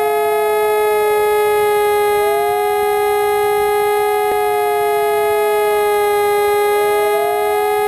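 Four sirens sounding loudly at once: one holds a steady tone while the others wail, slowly sweeping down and back up in pitch.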